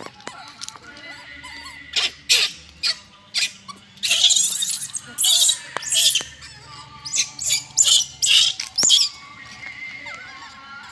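Baby macaque giving a rapid run of about a dozen short, shrill screeching calls, starting about two seconds in and stopping about nine seconds in.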